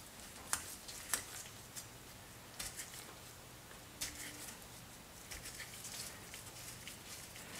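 Faint, scattered light metal clicks and ticks as a gloved hand spins the rusty adjuster bolt out of a 1920s Henderson Four cam follower held in a vise. The bolt turns freely, having been loosened by soaking.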